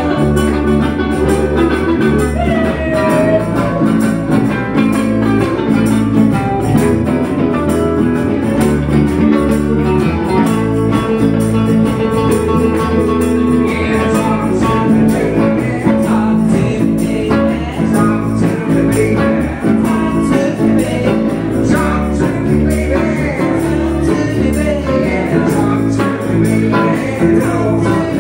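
Live band playing blues on acoustic and electric guitars with a steady beat.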